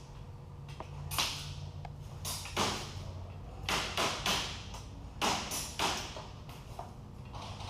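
Airsoft guns firing single shots, about nine sharp cracks at irregular intervals, each with a short echo, over a low steady hum.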